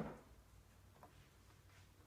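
A dull thump at the very start, then near quiet with one faint click about a second in, from a child's toy push mower being bumped and rolled.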